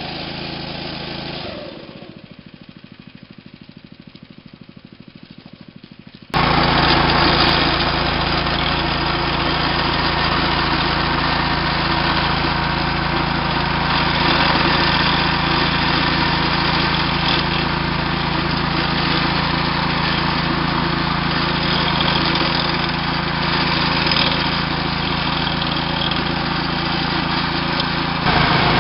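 Small single-cylinder gasoline engine of a walk-behind wire-burying trencher running steadily as it cuts a slot through turf. It is fainter for a few seconds, then loud and steady from about six seconds in.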